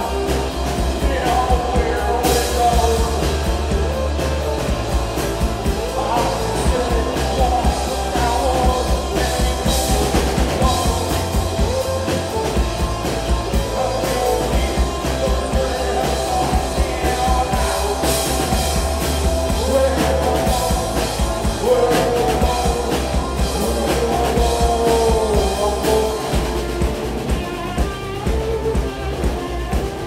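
Live rock band playing loud and without a break: two electric guitars, electric bass guitar and drum kit.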